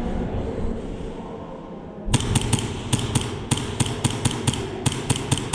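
Custom Tokyo Marui Hi-Capa gas-blowback airsoft pistol firing a quick string of shots, about four or five sharp cracks a second at uneven spacing, starting about two seconds in after a stretch of arena background noise.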